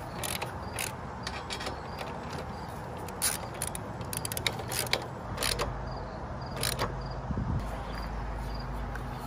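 Hand socket ratchet clicking irregularly as a 12 mm socket tightens down the motorcycle's footpeg-mount bolts.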